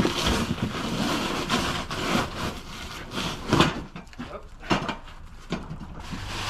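Irregular knocks, scrapes and rustling as heavy steel snow-plow parts and their packaging are handled, with one sharper knock about three and a half seconds in.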